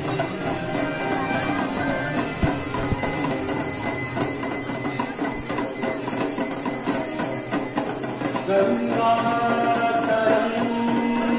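Hand bells of a Hindu aarti ringing continuously in quick strokes, many at once. Devotional singing comes in strongly over the bells in the last few seconds.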